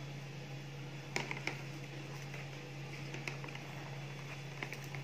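Light, scattered clicks and taps of hands handling dishes and burger fillings during hamburger assembly, a small cluster of them about a second in and a few more later, over a steady low hum.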